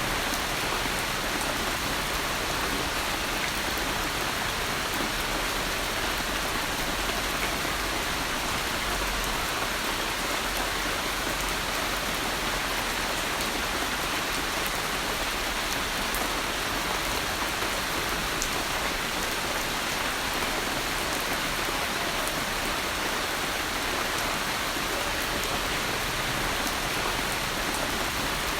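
Steady rain falling on a surface, an even hiss with faint scattered drop ticks and no change in intensity.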